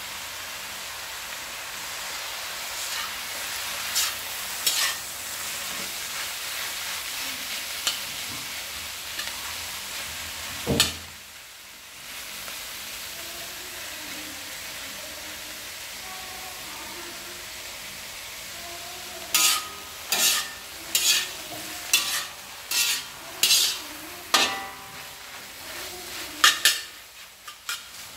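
Food frying in hot oil in a pan, sizzling steadily, with one sharp knock about eleven seconds in. In the later part it is stirred, the spatula striking and scraping the pan about once a second.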